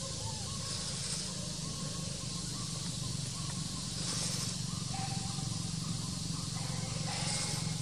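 Outdoor background ambience: a steady low hum with faint short tones scattered through it and a few brief bursts of high hiss.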